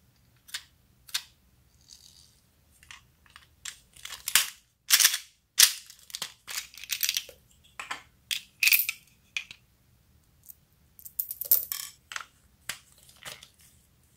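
A hard plastic toy airplane being handled and opened: irregular sharp clicks and knocks of plastic parts, loudest in two clusters in the first half and again near the end.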